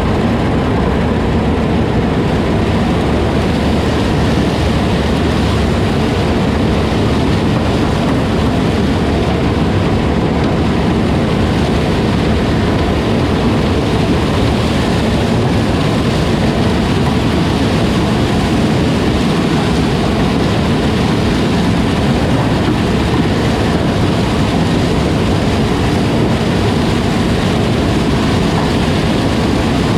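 Heavy diesel farm machinery running steadily, a loud, even drone with no change in speed.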